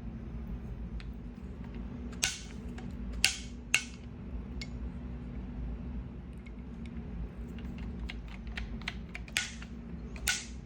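A series of sharp clicks and taps of small hard parts being handled: a handful of louder ones among many faint ticks, over a steady low hum.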